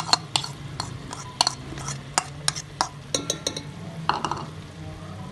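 Split moong dal tipped from a bowl into a pot of masala: a series of sharp, irregular clicks and knocks from the bowl and utensils against the pot, over a low steady hum.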